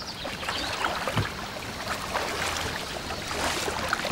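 Water splashing and lapping around a wooden boat being poled through a marsh channel, with many small irregular splashes over a steady wash of water.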